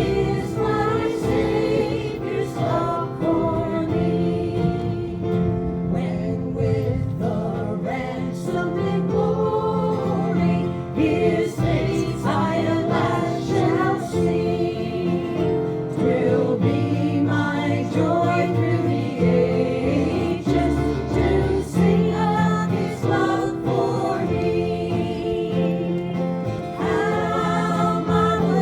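Group singing of a gospel hymn with instrumental accompaniment.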